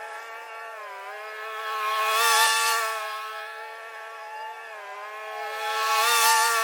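Lawn mower engine running while cutting grass. It grows louder and fades twice as the mower passes close and moves away, and its pitch sags briefly under load between passes.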